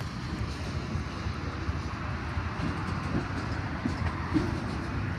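Freight train cars rolling along the tracks below: a steady rumble of wheels on rail with a few faint clacks.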